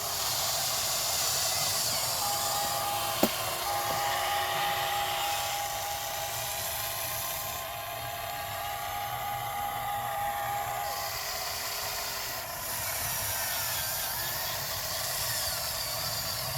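Small electric motor and hydraulic pump of an RC hydraulic excavator whining as it works, with a steady high-pitched whine for much of the time and a single sharp click about three seconds in.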